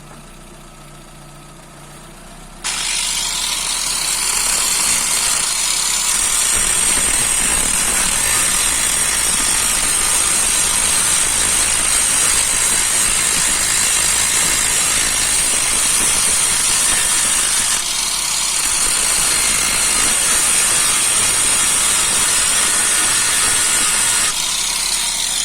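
Car engine idling in gear with the wheel spinning. About three seconds in, a tool is pressed against the spinning brake disc: a sudden, loud, steady metallic grinding hiss that eases briefly once and stops near the end. It is grinding down the worn lip on the disc edge to cure squealing brakes.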